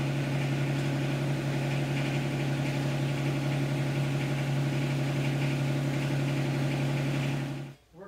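Yanmar SA424 compact tractor's three-cylinder diesel engine idling steadily, stopping abruptly near the end.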